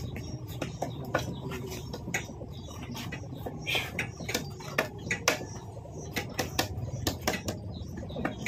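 Irregular metallic clicks and clinks of hand tools on metal parts, over a steady low hum.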